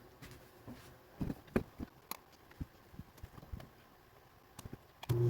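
Scattered light clicks and taps as fabric is positioned at a sewing machine, then the sewing machine starts running with a steady hum just before the end.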